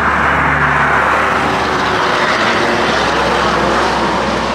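Racing kart engines running at speed: a loud, steady engine drone.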